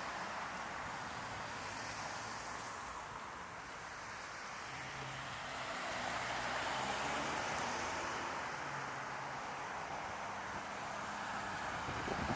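City street traffic: a steady wash of passing vehicles, growing louder about halfway through, with a low engine hum.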